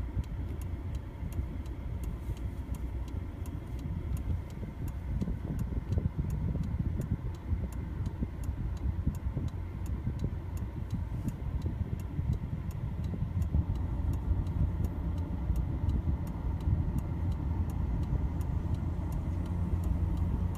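Low rumble of Boeing 727 jet engines, with faint steady whining tones, growing louder over the second half as the aircraft approaches.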